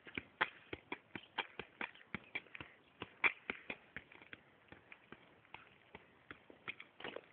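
Football being juggled with the feet: a quick, uneven run of light taps as the shoe strikes the ball, two or three a second, with one harder touch about three seconds in.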